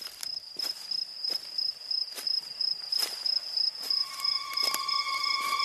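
Crickets chirring steadily at a high pitch, with footsteps of people walking on a road. About four seconds in, a steady droning tone joins.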